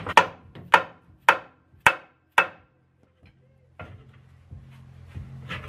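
Five sharp hammer blows about half a second apart, striking the car's front suspension to knock a part of the control-arm assembly loose, followed by faint clatter.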